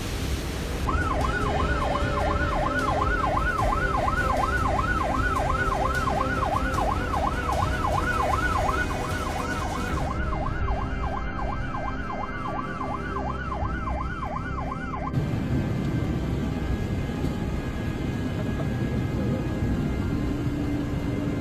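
Emergency vehicle siren in a fast yelp, sweeping up and down about three times a second over a steady rushing background noise; the siren cuts off about fifteen seconds in, leaving the noise.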